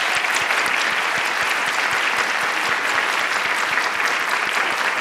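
Audience applauding steadily: dense clapping from a room full of people.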